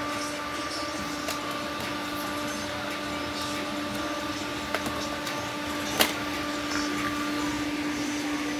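Small battery-powered handheld fan running steadily close to the microphone: a constant motor hum with a steady whine over the whoosh of its blades. A few sharp clicks cut through, the loudest about six seconds in.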